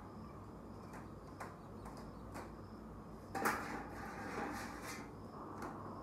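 Eggs being lifted from a metal bucket and set into pulp egg trays: scattered light clicks of shells against the trays and bucket, with a louder rustling clatter of handling about three and a half seconds in.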